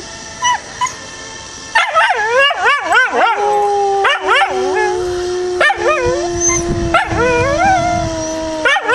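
Schnauzer-terrier mix dog howling: from about two seconds in, quickly wavering howls and yips that rise and fall come in bouts, over a long, steady, slowly falling lower howl.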